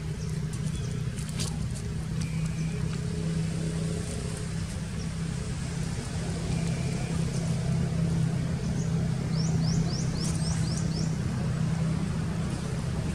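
A steady low engine hum, like a motor idling, runs throughout. About ten seconds in, a quick run of about six short, high, rising chirps.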